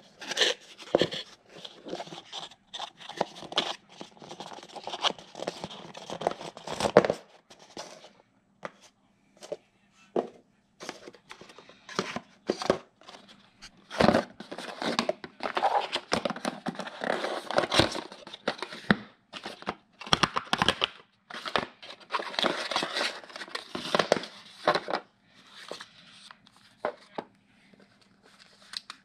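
Cardboard packaging and paper leaflets handled on a wooden table: rustling, sliding and scraping of cardboard, broken by sharp taps and knocks as box parts are set down.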